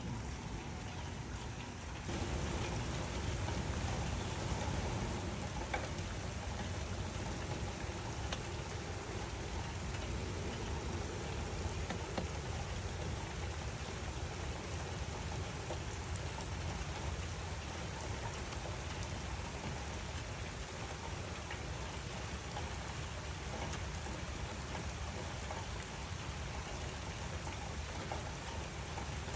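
Steady rain falling and pattering on surfaces, a dense even wash of drops with a full low end. It gets louder about two seconds in, then holds steady.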